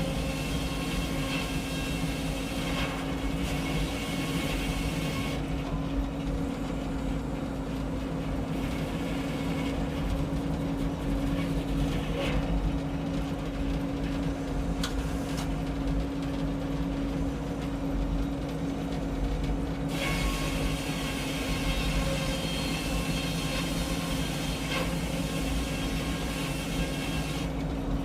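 Engine-driven Frick circular sawmill running steadily with an even engine drone. A higher hiss over it fades out about five seconds in and comes back about twenty seconds in.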